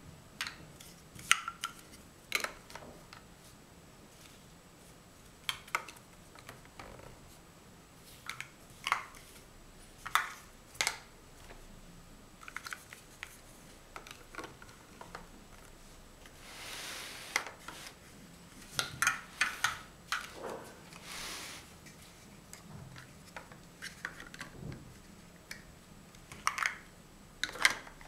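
Large plastic Mega Bloks First Builders blocks clacking and clicking as they are handled and pressed together, in irregular sharp knocks, some in quick clusters. About two thirds of the way through there is a softer rustle of blocks sliding.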